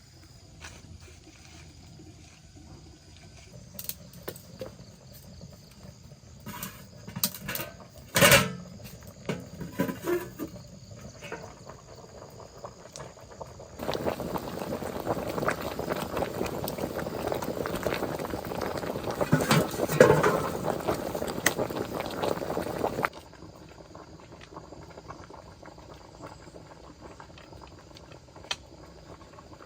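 Scattered knocks and clicks, one loud knock about eight seconds in, then a pot of water boiling hard for about nine seconds from around the middle.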